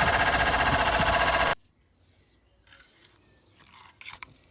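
A small motor runs with a loud, fast, steady pulsing whirr, then cuts off abruptly about one and a half seconds in. Faint clicks and handling rustles follow.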